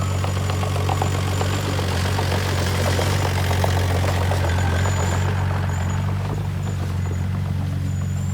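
Heavy machine's diesel engine running steadily at an even low pitch, with light rattling ticks over it.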